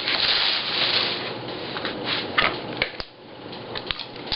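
Plastic wrapping rustling as it is slid off a keyboard, then a few light clicks and taps as the keyboard is handled.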